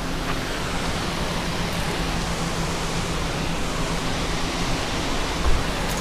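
Steady rushing noise with a faint low hum under it, and a single low thump about five and a half seconds in.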